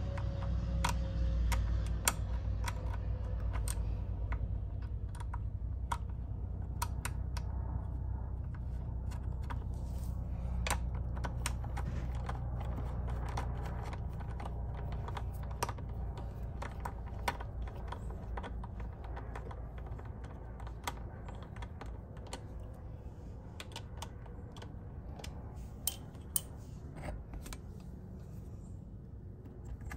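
Scattered light clicks and taps, irregular in timing and strength, as a hand tool works at a metal clamp on a scooter's transmission case. A low steady rumble runs underneath.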